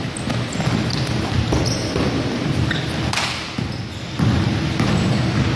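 Basketball bouncing and players' footsteps on a hardwood gym court, with scattered knocks over a steady low rumble in the echoing hall. A faint steady hum comes in about four seconds in.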